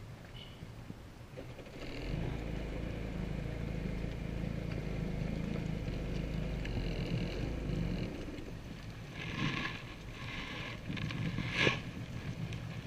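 Personal watercraft (jet ski) engine running at low speed, steadier and louder for several seconds before easing back toward idle. Near the end there are scattered higher-pitched noises and one sharp knock.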